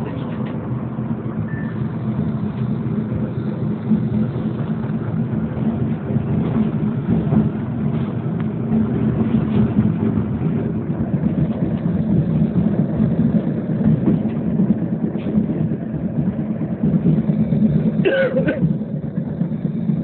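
Tram running along the track, heard from inside the passenger car: a steady low noise of wheels on the rails. A brief sharper sound cuts in about two seconds before the end.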